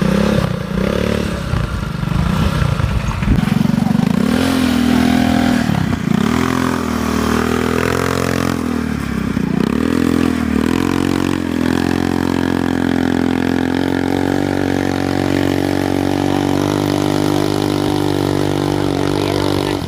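ATV engine revving under load: its pitch falls and rises several times in the first ten seconds, then holds a steady note for the last eight seconds.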